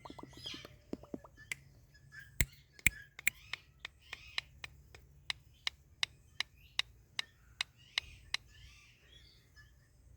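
Indian ringneck parrot making soft chirping chatter, with a quick run of small clicks at the start and then a steady series of sharp clicks, about two or three a second, that stops near the end.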